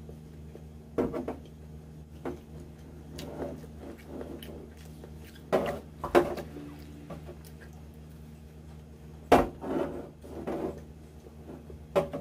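Someone eating battered, fried hotdog bites: chewing, with scattered sharp clicks and knocks as toothpicks and a plastic strainer are handled, over a steady low hum.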